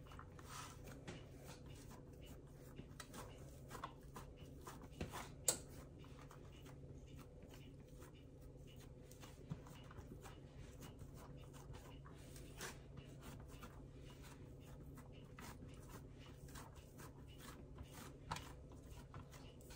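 Faint, irregular soft rubbing and patting of hands pressing crescent roll dough flat on a silicone baking mat, pinching the seams together, with one sharper tap about five and a half seconds in, over a low steady hum.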